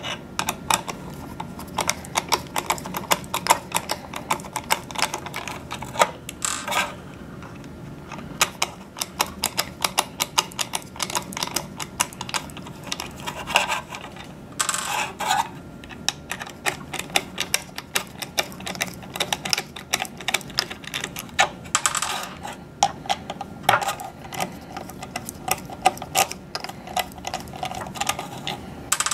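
Screwdriver backing metal screws out of a plastic radio hood: rapid, dense clicking with a few louder spells.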